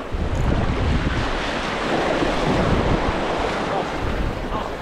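Sea waves washing in and splashing between the granite boulders of a jetty, with wind rumbling on the microphone.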